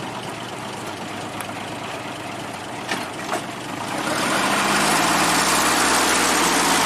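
ZIL truck's six-cylinder side-valve petrol engine running steadily, with two short knocks about three seconds in; about four seconds in it gets clearly louder and stays so.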